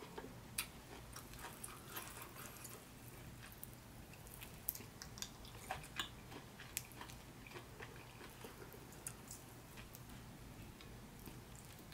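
A person chewing stewed beef, with wet mouth sounds and scattered small sharp clicks as fingers pull the meat off the bone in the sauce.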